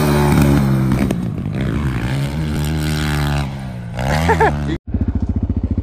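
Small pit bike engine running on a dirt track, its pitch drifting with the throttle, with a short rev up and back down near the end. After an abrupt cut, a closer pit bike engine runs with a rapid, even beat.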